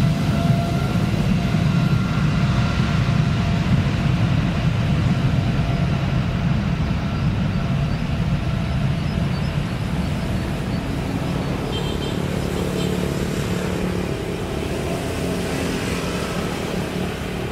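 Boeing 777F's two General Electric GE90 turbofan engines at takeoff power during the takeoff roll: a loud low rumble with a steady whine above it, slowly fading in the second half as the jet moves away.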